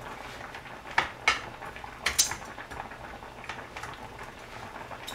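Metal kitchen utensils clicking and clinking against cookware, with sharp clicks about a second in and again about two seconds in.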